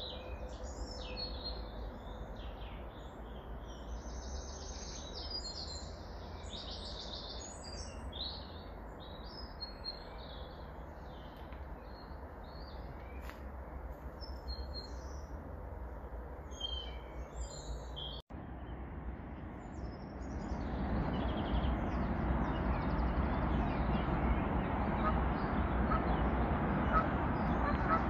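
Woodland birds singing and chirping, many short calls overlapping, over a steady low rumble. About two-thirds of the way through, the sound breaks off for an instant and a louder steady hiss takes over, with fainter bird calls above it.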